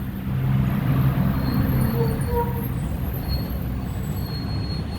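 Mercedes-Benz OF-1418 bus's front-mounted diesel engine running under way with road noise, its low note easing a little about halfway through.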